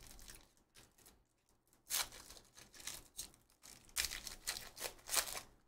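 A sports-card pack wrapper being torn open and crinkled by hand, in a few short crackly rustles.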